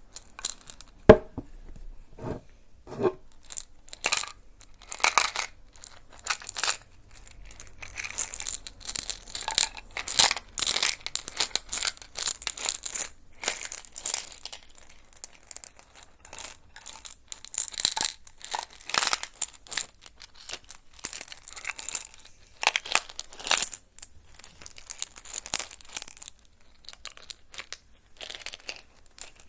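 ASMR trigger sounds from an object being handled: a few separate clicks, then dense, irregular crackling and clicking in clusters.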